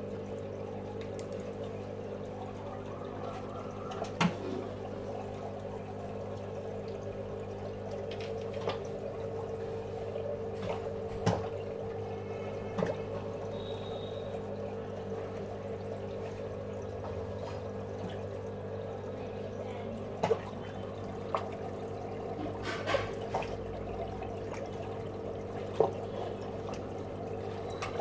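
Aquarium filter and air pump running: a steady hum under a constant trickling and bubbling of water. A handful of short, sharp splashes or knocks break in at irregular moments.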